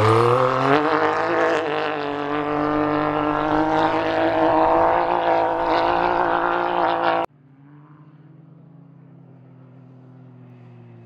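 Can-Am Maverick X3 side-by-side race car's three-cylinder engine running hard at high revs, its pitch climbing over the first second and then holding with slight wavering. About seven seconds in it cuts off abruptly and gives way to a much quieter, steady engine note.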